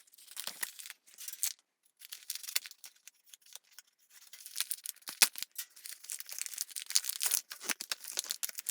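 Packaging of a PTFE tube and pneumatic connector kit being opened and handled by hand: irregular crinkling, rustling and tearing with small clicks, stopping briefly twice, with one sharp click about five seconds in.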